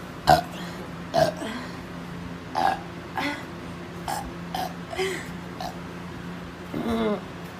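A woman burping in a series of short belches, about nine in all, the first two the loudest, with a longer, drawn-out burp that wavers in pitch near the end. A steady low hum runs underneath.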